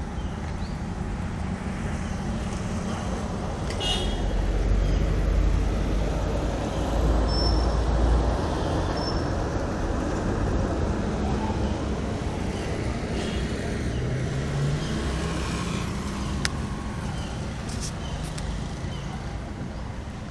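Street traffic noise: steady road rumble that swells as a vehicle passes about four to eight seconds in, with a few brief horn toots.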